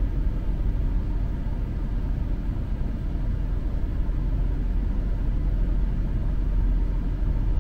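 A steady low rumble inside a parked car, with no distinct strokes or changes.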